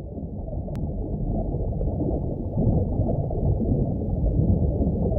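Muffled underwater rumbling and bubbling, fading in and swelling, with all its sound held low and dull as if heard below the surface.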